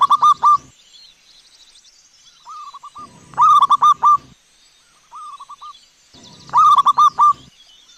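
Zebra doves cooing: three loud phrases of rapid staccato coo notes, about three seconds apart, with softer, shorter phrases between them.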